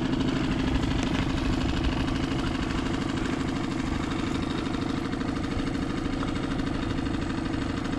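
Small outboard motor on an inflatable boat idling steadily.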